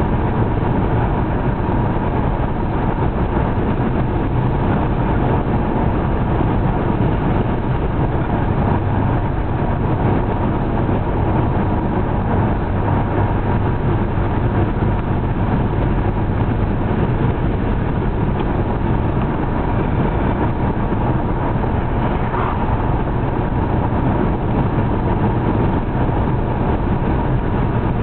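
Steady drone of a car driving at road speed, engine and tyre noise heard from inside the cabin.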